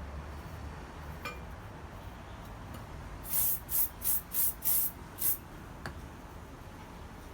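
Six quick scraping strokes on steel in about two seconds, with a light metallic clink about a second in, as the finished blacksmith tong is worked over.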